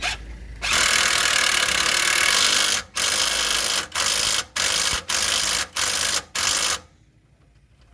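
Power tool running a bolt in on a Suzuki Jimny's rear axle fittings: one run of about two seconds, then six short bursts in quick succession as the bolt is driven home, stopping near the end.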